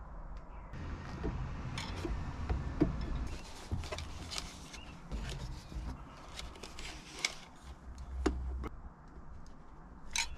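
Manual caulking gun clicking and clacking at irregular moments as its trigger is squeezed to lay a bead of sealant, with knocks and rustling from handling.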